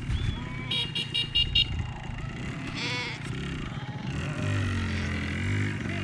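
A mob of sheep bleating with a farm motorbike engine running, its note rising and falling for a second or so past the middle; a quick run of short, high calls comes about a second in.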